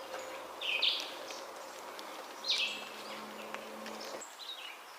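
A songbird singing short, high phrases about every second and a half in woodland, over a faint steady hum that stops about four seconds in.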